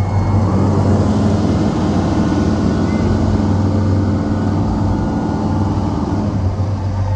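E-One Hurricane fire truck's diesel engine running with a steady low hum; a higher steady note joins about half a second in and fades out near the end.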